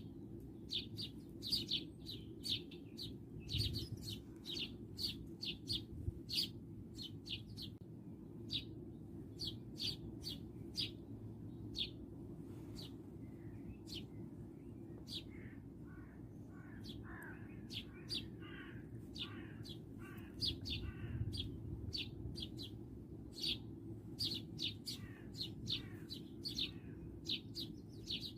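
Small birds calling: one repeats short, high chirps about every half second, while in the middle stretch a second bird sings lower, sliding warbled phrases. A steady low rumble sits underneath.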